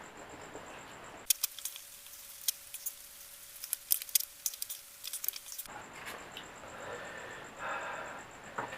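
Close-up eating sounds of fried instant noodles being chewed, with wet smacking; for a few seconds in the middle come many sharp clicks and smacks.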